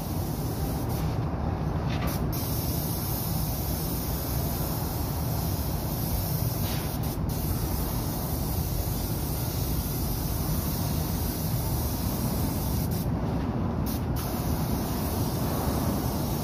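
Paint spray gun hissing steadily as steel is spray-painted, over a constant low rumble; the hiss breaks off briefly three times, as the spray stops between passes.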